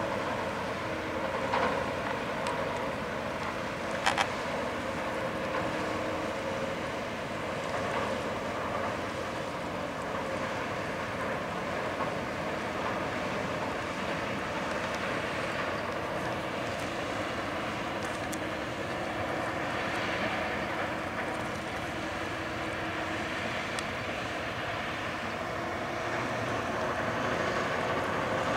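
Harbour tug's Caterpillar diesel engines running under load, a steady drone mixed with water and wind noise, with a brief sharp click about four seconds in.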